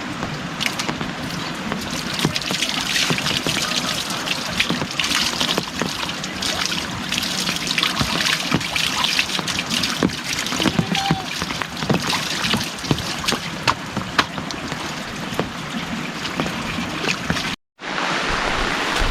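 Heavy rain falling, with water trickling and many close drops ticking. It cuts out for a moment near the end.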